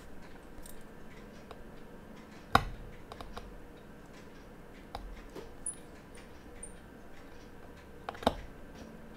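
Small sharp clicks and ticks of a watchmaker's steel screwdriver and tweezers against a quartz watch movement and its holder, with the loudest click about two and a half seconds in and a second pair of clicks near the end.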